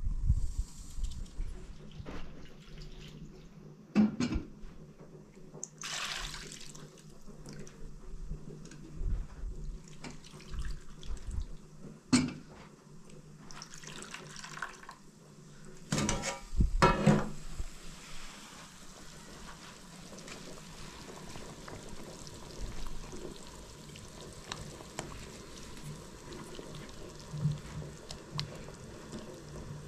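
Water splashing in a plastic basin as cut potato pieces are rinsed by hand, with a few sharp knocks of metal dishes. Through the second half, a steady hiss with light splashes as potato slices go into a simmering pot.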